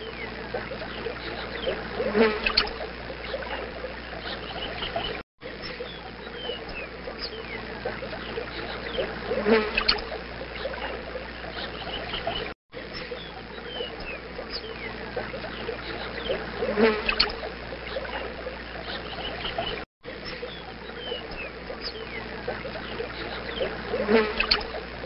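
Looped nature ambience of trickling water with short chirping animal calls. The same stretch of about seven seconds repeats with a brief dropout between passes, and each pass holds one louder call.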